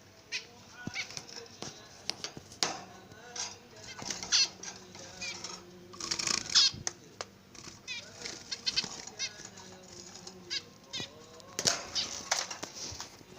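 A group of pet lovebirds chattering: many short, shrill chirps and rapid warbling calls, with a few louder sharp screeches.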